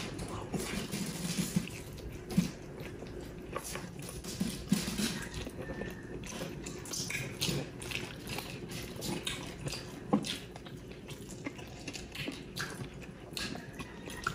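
Close-miked eating of juicy roast chicken by hand: wet chewing, lip smacks and irregular sharp clicks.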